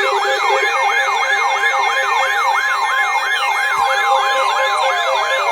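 Electronic siren on a rapid yelp, its pitch sweeping up and down about four times a second, layered with steady tones and a fainter, faster warble above. In the second half a lower tone slides slowly downward.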